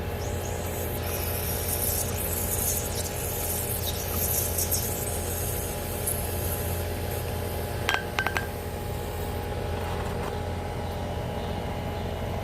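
Steady hum and rush of HVAC supply air blowing up through an old, non-functional mobile home unit and out its grille. A few sharp clicks come about eight seconds in.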